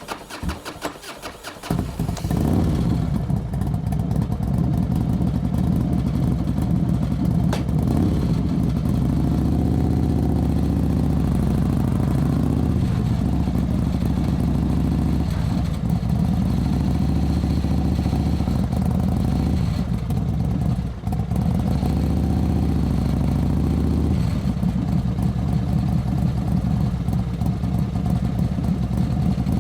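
Motorcycle engine pulsing low and unevenly for the first two seconds, then running loud and steady as the bike is ridden, its pitch shifting every few seconds, with a brief dip about 21 seconds in.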